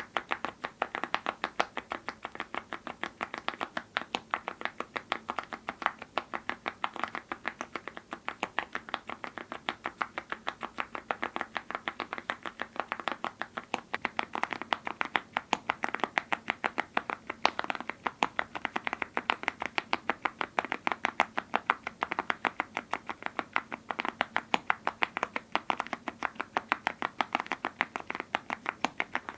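Mechanical keyboard with full-metal keycaps and linear switches being typed on steadily: a continuous run of sharp key clacks, several a second.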